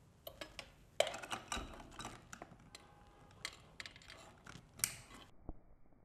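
Ethernet patch cord being handled and its RJ45 plug clicked into a network port: scattered small plastic clicks and rattles, the sharpest about a second in and again near the end.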